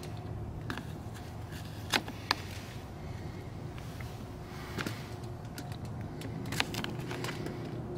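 Victorinox Hiker pocketknife cutting an apple on a thin plastic cutting board: a handful of short, scattered clicks and taps as the blade goes through the fruit onto the board, over a steady low background rumble.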